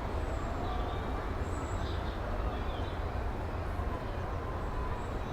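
Steam locomotive with a steady low rumble and no clear exhaust beat, with a few faint high chirps about a second and a half in.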